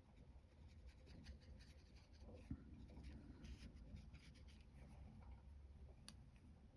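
Faint scratching of a Caran d'Ache Neocolor II wax pastel crayon being drawn across rough cotton-rag paper, with a small tap about two and a half seconds in.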